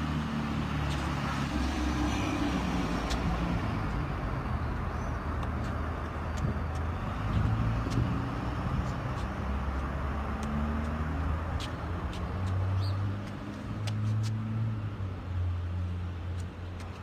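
Road traffic noise: a steady low engine hum from motor vehicles, with a few light clicks.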